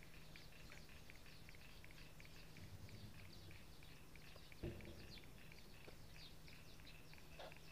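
Near silence, with a faint chorus of many small, high chirps from marsh wildlife and one soft knock about four and a half seconds in.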